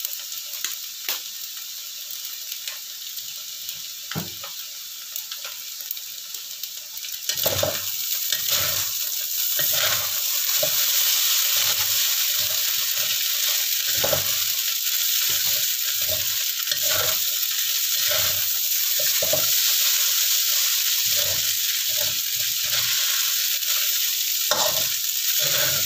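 Rice vermicelli stir-frying in a wok: a steady sizzle that grows clearly louder about seven seconds in, with a spatula repeatedly scraping and knocking against the pan as the noodles are tossed to fry a little crisp.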